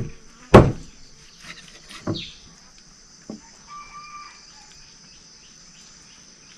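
Large knife chopping raw chicken on a wooden chopping block: two loud chops in the first second, then lighter ones about two and three seconds in. A steady high drone of insects runs underneath, with a faint bird call near four seconds.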